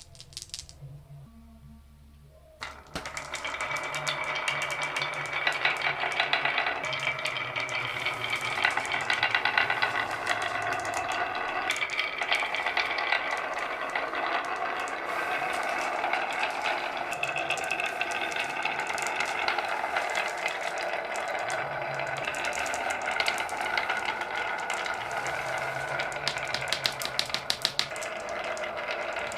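Many balls rolling and clattering through a wooden marble run: a dense, continuous stream of clicks and rolling that starts suddenly about three seconds in.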